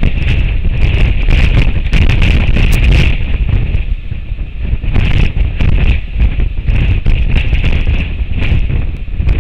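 Strong gusting wind buffeting an outdoor camera microphone: a loud, rumbling roar that swells and eases, with scattered crackles.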